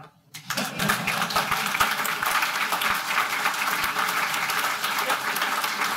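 Audience applauding: many people clapping together, starting about half a second in and holding steady.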